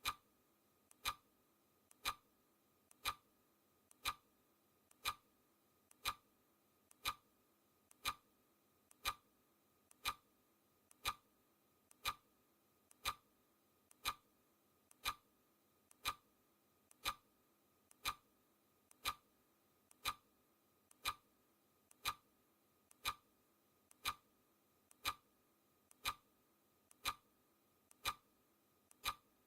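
Clock ticking sound effect, one sharp tick each second, marking the seconds of a countdown timer.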